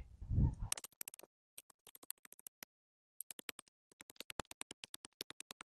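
Hoe working hard, stony soil: a dull thud at the start, then a run of quick, irregular sharp clicks and scrapes as the blade drags through dirt and stones.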